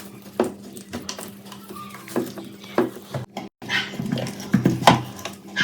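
Irregular light knocks and clinks of metal fan parts being handled, over a steady low hum, with a short break past halfway.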